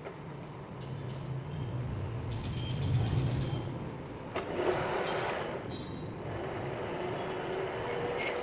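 Metal lathe running with a steady low hum, with a steady higher tone coming in about halfway and brief higher-pitched scraping now and then.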